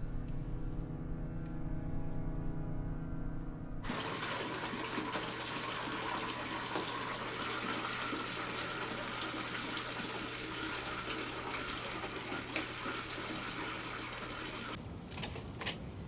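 A steady low hum for about the first four seconds, then an abrupt cut to water running hard from a bathroom tap, a dense even rush that goes on for about eleven seconds and stops abruptly.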